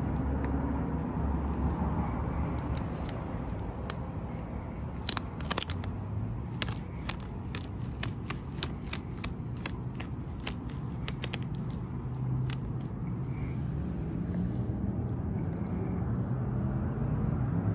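Crisp, irregular crackles and ticks of a vinyl decal's backing and clear transfer film being handled and pressed onto a BMX fork leg, thickest in the middle of the stretch and dying away near the end, over a steady low rumble.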